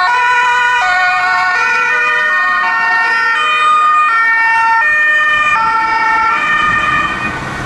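German two-tone emergency sirens (Martinshorn) of rescue-service vehicles, a box ambulance among them, sounding as they drive past, the pitch stepping back and forth between tones. A low engine hum comes up near the end as the ambulance passes close by.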